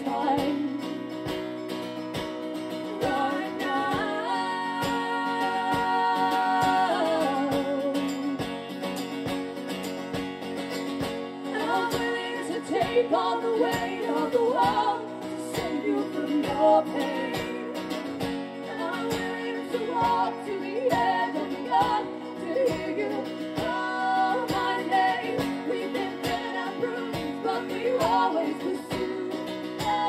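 Live band music: acoustic guitars strummed over a steady beat, with singing that holds long notes in places.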